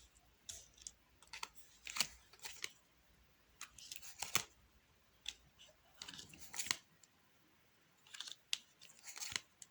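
Playing cards being handled and laid down on a table: faint, irregular crisp snaps and rustles, about a dozen in all.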